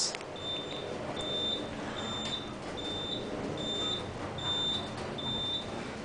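A high electronic beep repeating about every 0.8 seconds, each beep about half a second long, over the faint hum of a descending elevator cab.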